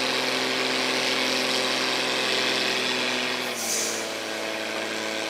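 Heavy log truck's diesel engine running at steady raised revs, then easing back to a lower note about three and a half seconds in, with a short hiss at the same moment.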